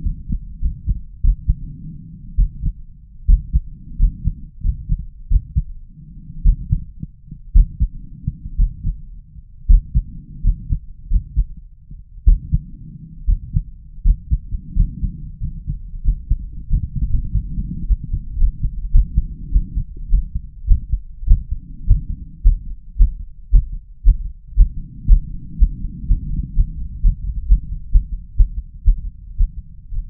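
A man's heartbeat heard through a stethoscope on the chest: strong, low thumps in an uneven rhythm. The irregular beats are brought on by chest-vacuum breathing manoeuvres.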